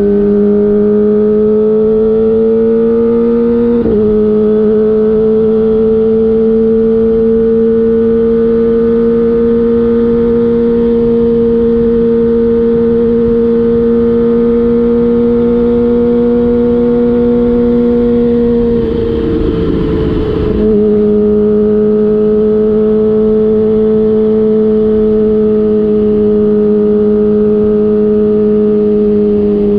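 Kawasaki Ninja ZX-25R's 250 cc inline-four, breathing through a DX Generation Prorace aftermarket exhaust with the dB killer removed, running at steady high revs under way, over a low rush of wind noise. The engine note breaks off briefly about four seconds in. Later it turns to a ragged noise for about two seconds, then comes back slightly lower and slowly eases down.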